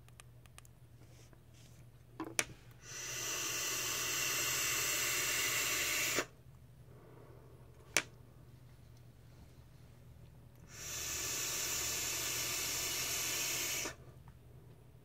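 Two long draws through a Sigelei Moonshot rebuildable tank atomizer fired at about 62 W on a 316L stainless steel coil: a steady airy hiss of air pulled through the open airflow, each lasting about three and a half seconds. A sharp click comes just before the first draw and another between the two.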